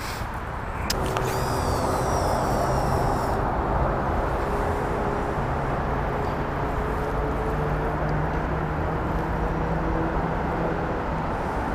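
Steady rumble of road traffic with a heavy vehicle's engine hum running through it. A brief high squeal starts about a second in and lasts a couple of seconds.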